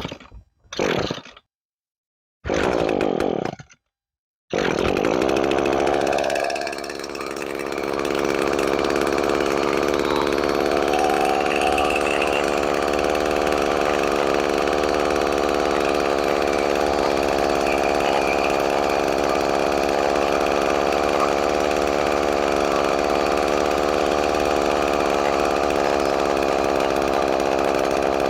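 Two-stroke engine of an Echo SRM-210 string trimmer, fitted with a new carburetor, starting up: a few brief bursts, then it catches about four and a half seconds in. It sags once shortly after catching, then keeps running steadily.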